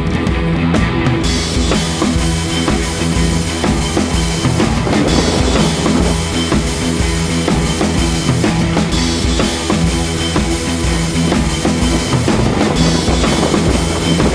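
Background music with a steady, driving drum-kit beat and bass.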